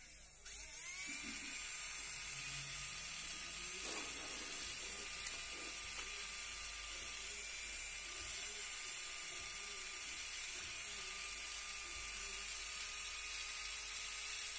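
Small battery-driven DC motor spinning up about half a second in and then running with a steady high-pitched whine, turning a second small DC motor coupled to its shaft as a generator. A brief click about four seconds in.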